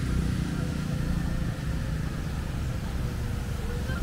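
Street traffic: a steady low rumble of vehicle engines running close by.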